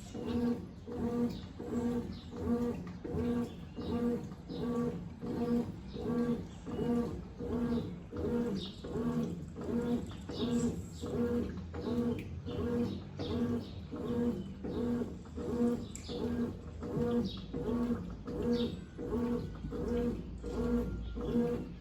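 Brastemp Tira Manchas Advanced 17 kg top-loading washing machine agitating in its rinse cycle. The motor hums in regular strokes, about one and a half per second, with water swishing in the drum.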